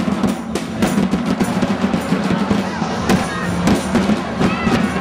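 Street drumming: a large rope-tensioned drum struck in a steady beat, about three strokes a second, over a sustained low drone and crowd voices.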